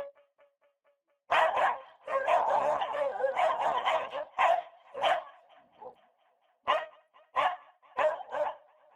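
Angry dog barking aggressively: a couple of sharp barks, then a rapid, unbroken run of barking for about two seconds, then single barks every half-second to a second.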